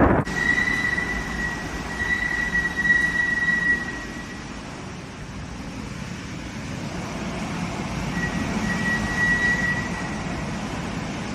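Storm wind rushing, with a high steady whistle that sounds for about the first four seconds and again for about two seconds near the end.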